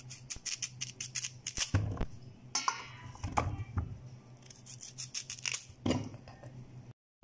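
Kitchen knife slicing through a raw sweet potato: quick runs of crisp crunching clicks as the blade works through the firm flesh, in two spells with a pause between.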